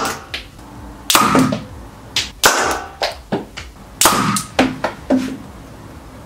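A homemade syringe minigun firing shot after shot: ethyl-alcohol vapour in each syringe barrel is lit by a piezo-igniter spark and pops, driving out a plastic plunger bullet. About ten sharp pops come at uneven intervals, some with a short ringing tail, and they stop a little after five seconds in.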